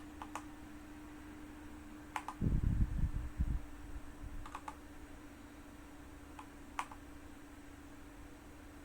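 Keychron K2 mechanical keyboard with Gateron Brown switches: single keys pressed one at a time, a couple of seconds apart, each giving a short double click. A burst of low thuds, the loudest sound, comes a bit over two seconds in, over a steady low hum.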